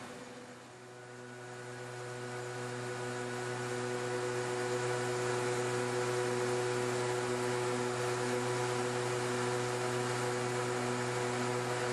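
Helios Zeus CNC stone machining center engraving a marble slab: a steady motor hum of several held tones under a hiss. It swells over the first few seconds, then holds steady.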